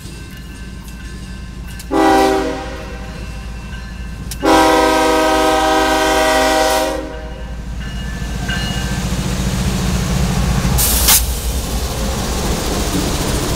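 Diesel locomotive horn: a short blast about two seconds in, then a long blast of about two and a half seconds. It is followed by the rumble of a CN freight train's diesel locomotives growing louder as they pass close by, with one sharp crack near the end.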